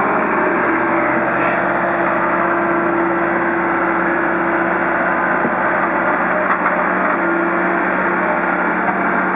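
A work machine's engine running steadily, with a constant hum throughout.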